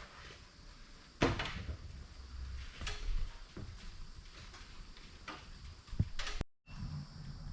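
Scattered knocks and clunks of objects being handled, a second or two apart, the loudest about a second in. About six and a half seconds in the sound cuts off abruptly and a low steady hum follows.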